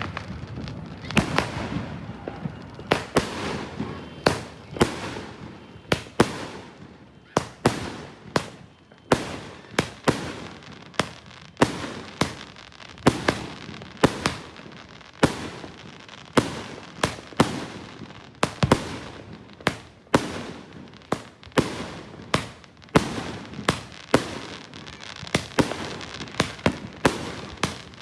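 Aerial fireworks going off in a long rapid barrage: sharp bangs about one to two a second, with a continuous noisy rush between them.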